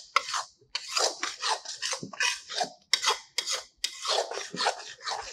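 Metal spatula scraping and stirring thick halwa around a metal kadhai in short, irregular strokes, about three a second, as the mixture is roasted (bhuna) in ghee.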